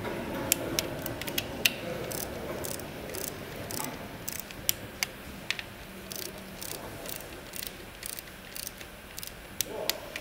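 Ratcheting torque wrench clicking in irregular runs as it tightens the M6 camshaft bearing-cap bolts to their first-stage torque of 10 N·m.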